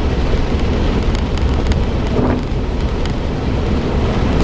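Steady low rumble of a 2004 Suzuki Jimny driving slowly along a waterlogged grass track, heard from inside the cabin, with a few faint light ticks over it.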